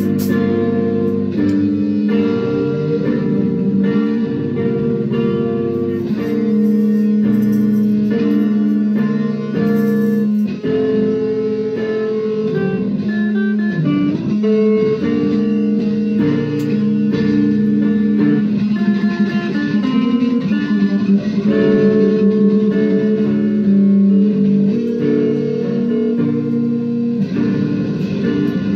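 Loud improvised noise-rock jam: amplified electric guitar playing long, held droning notes that change pitch in steps, over a steady low drone.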